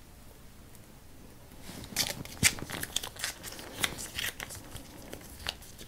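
Plastic pouch of ready-made cake cream crinkling and crackling as it is squeezed and handled, a quick irregular run of crackles starting about two seconds in.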